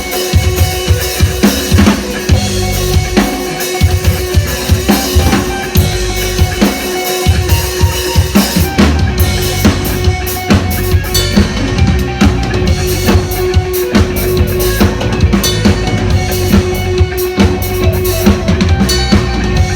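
Live music with a steady drum beat, kick drum and snare, over a held sustained note.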